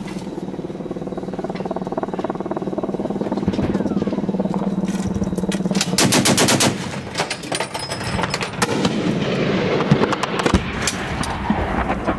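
Automatic machine-gun fire: a loud rapid burst about six seconds in, then scattered single shots and short bursts. A vehicle engine runs steadily under it during the first half.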